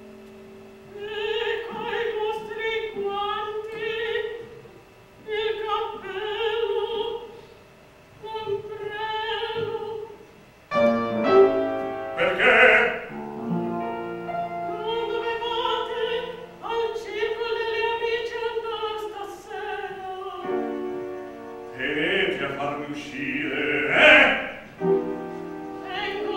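A soprano sings an Italian opera phrase with piano accompaniment, in short phrases with brief pauses between them. About eleven seconds in, the piano comes in with fuller chords.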